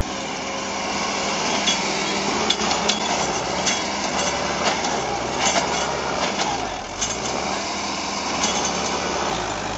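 Sonalika tractor's diesel engine running as it drives at speed across dry stubble, over a steady noise with many scattered sharp clicks and knocks.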